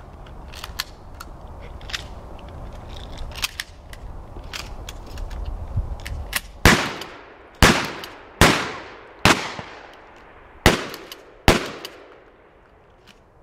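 Shotguns firing slugs: six loud shots with echoing tails, in three pairs of double shots each a little under a second apart, starting about halfway in. Fainter sharp cracks come before them.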